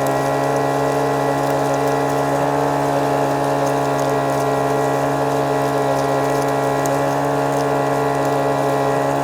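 Vac-Pac prospecting vacuum's small gas engine running at a steady speed while it sucks up loose gravel and sand scraped off hard-packed desert ground.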